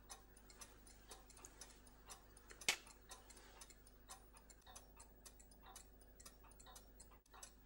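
Faint, rapid, even ticking of a mechanical pocket watch, about five ticks a second, with one sharper click a little under three seconds in.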